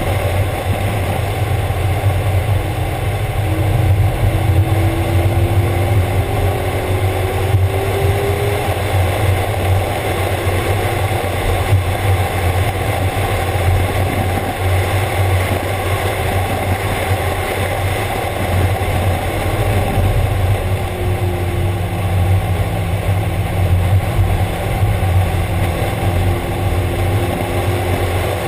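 Mazda Miata driven hard on a track with the top down: heavy wind buffeting over the open cockpit covers most of the sound. The engine note shows through, rising in pitch a few seconds in and again in the last third.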